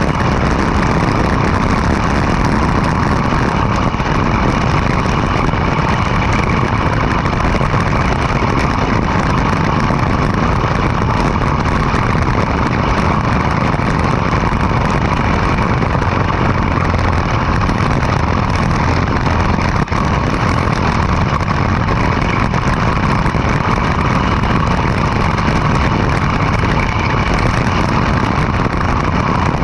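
Go-kart's small petrol engine running steadily while the kart is driven, with a brief dip in level about twenty seconds in.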